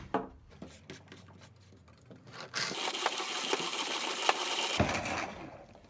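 Zassenhaus 243 hand-cranked conical burr coffee grinder grinding coffee beans at its finest setting. Scattered cracks of beans at first, then a loud, steady gritty grinding that stops abruptly near the end.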